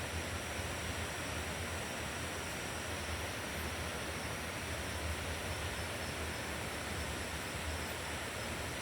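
Steady rush of a river flowing past, with no single events standing out, and a faint steady high tone running through it.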